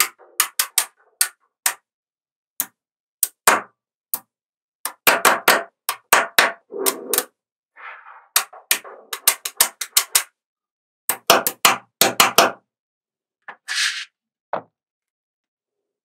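Small neodymium magnetic balls clicking and snapping together as blocks of them are set down and joined, in quick runs of sharp clicks separated by short silences. There is a brief scraping rattle near the end.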